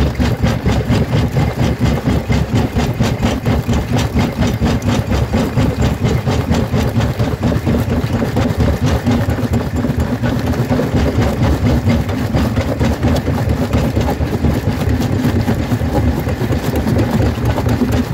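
Jaw crusher running, its swing jaw working in a fast, steady pulsing rhythm as it crushes rocks between the ribbed jaw plates.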